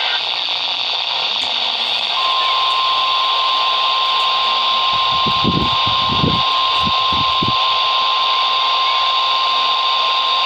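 NOAA weather radio receiver hissing with static. About two seconds in, the steady 1050 Hz warning alarm tone starts and holds, signalling an incoming alert, a severe thunderstorm watch expansion. A few low thumps come in the middle.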